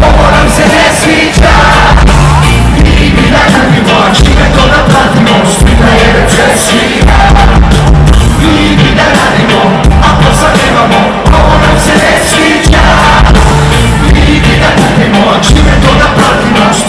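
Live band playing loud amplified music with a heavy, pulsing bass and sung vocals, heard from within the crowd in front of the stage.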